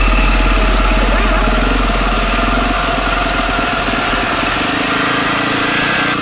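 Single-cylinder four-stroke engine of a Honda CRF450 dirt bike, heard from on the bike, running steadily without a rev change. A deep low rumble sits underneath it and fades out about two-thirds of the way through.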